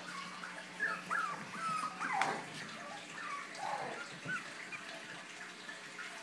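Bichon Frise puppies whimpering and yipping in a string of short, high-pitched whines that rise and fall in pitch, with one longer falling yelp about two seconds in.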